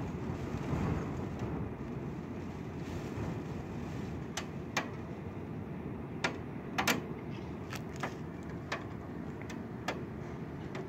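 Steady low rush of wind and rain, with about a dozen sharp ticks scattered irregularly from about four seconds in.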